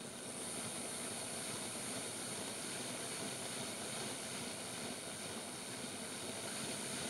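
Hornby OO gauge GWR King class model locomotive running on a rolling road: a steady whirr from its small electric motor and gears, with the wheels spinning on the rollers and a thin high whine over it. It starts abruptly, running in the other direction as the brand-new loco is run in.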